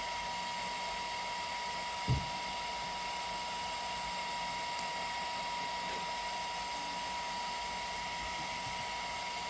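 Steady background hiss with a thin, constant high tone, and a single soft knock about two seconds in.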